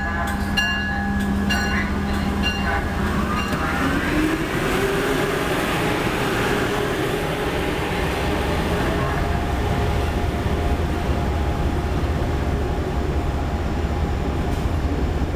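Amtrak HHP-8 electric locomotive pulling a train of coaches away along the platform, gathering speed. A whine rises in pitch from about four seconds in over the steady rolling rumble of the train. A few ringing strikes about once a second sound in the first couple of seconds.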